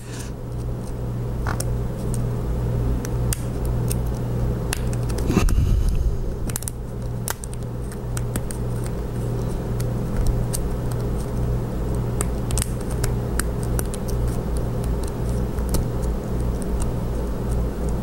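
Lock pick and tension wrench working the pin tumblers of an oiled brass padlock: scattered light metallic clicks and scrapes over a steady low hum and handling rumble.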